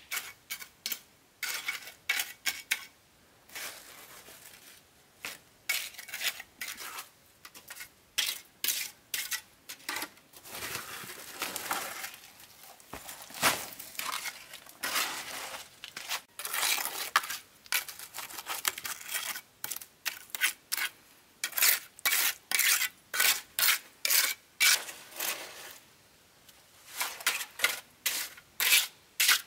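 Hard objects repeatedly clinking and scraping against each other: many short, sharp knocks, with a few longer scrapes in the middle.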